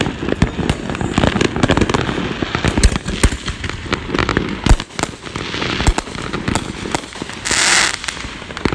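Consumer fireworks going off all around in a dense run of bangs, pops and crackles, with two heavier booms around three and five seconds in. Near the end there is a brief hissing rush.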